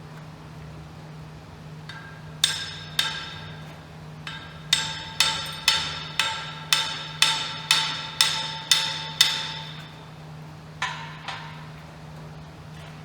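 Hammer blows on steel, each with a brief metallic ring. There are a few single strikes, then a run of about a dozen at roughly two a second, then two more near the end. The blows are struck to break loose the bolt that holds the piston on a Case backhoe's hydraulic cylinder ram.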